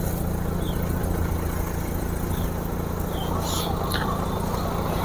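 Open off-road jeep's engine running steadily as it drives along a rough dirt track, with a few short high chirps and a couple of light clicks over it.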